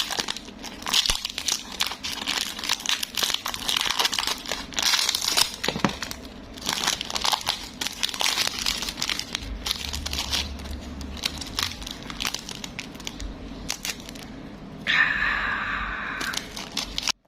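Plastic wrapping and packaging crinkling and tearing as it is unwrapped by hand, in dense, irregular crackles. Near the end a different, steadier sound with several tones runs for about two seconds.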